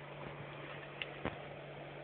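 A steady low electrical hum over a hiss, with two sharp clicks about a quarter of a second apart around a second in.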